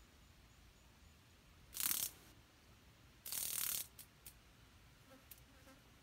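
A cicada seized by a praying mantis gives two short, harsh buzzes about a second and a half apart, the distress squawk of a caught cicada. A few faint clicks follow near the end.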